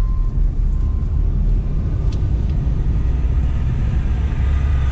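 Truck driving, heard from inside the cab: a steady low rumble of engine and road noise.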